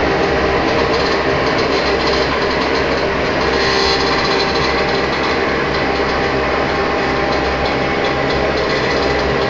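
Home-built waste-engine-oil heater running: a steady, loud mechanical hum and rushing noise with faint steady whines through it.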